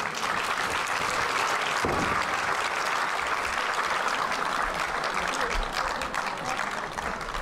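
Audience applauding: steady, dense clapping that thins a little near the end.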